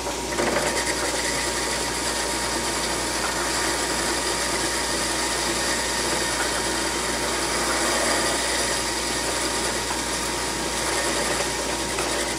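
Belt-driven metal lathe running while a boring bar, fed by hand on the compound, cuts a tapered bevel inside the bore of a metal workpiece. A steady machine sound with a faint steady tone, a little louder from about half a second in.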